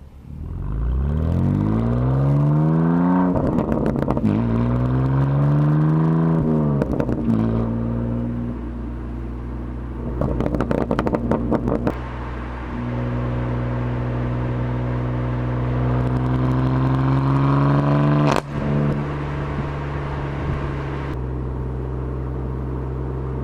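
BMW M2 Competition's S55 twin-turbo straight-six engine revving up near the start, then running steadily, with exhaust crackles and pops on lifting off: several crackling bursts, the longest about two seconds, and one sharp pop later on.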